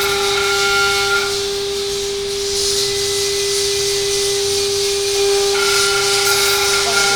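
CNC router spindle running with a steady high whine while the bit cuts wood, with a hiss of cutting over it; higher tones join in during the first second and again near the end.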